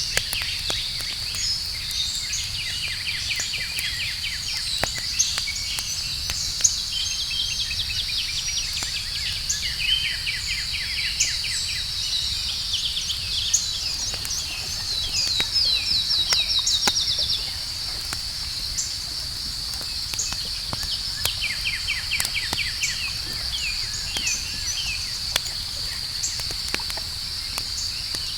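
Outdoor campfire crackling with scattered sharp pops and a low rumble, under a steady high-pitched chorus of night insects. Repeated chirping calls come and go, with a louder fast trill in the middle.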